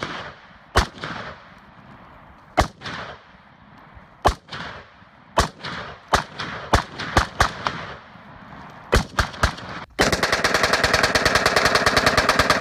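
Rifle shots fired one at a time at an uneven pace, about a dozen, each sharp crack followed by an echoing tail. About ten seconds in, they give way to a long, rapid, evenly spaced string of automatic fire that lasts to the end.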